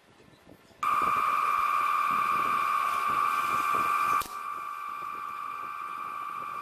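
A steady high-pitched whine starts abruptly about a second in. A single sharp click of a hand-held electric nailer firing into wooden trim comes about four seconds in, after which the whine carries on quieter.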